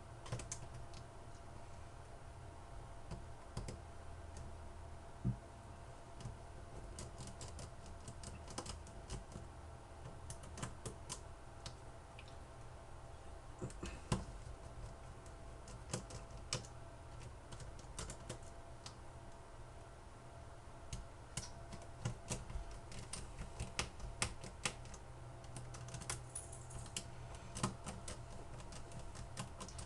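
Small precision screwdriver working tiny screws out of a mobile phone's slider frame: irregular light clicks and taps of metal on metal and plastic, over a low steady hum.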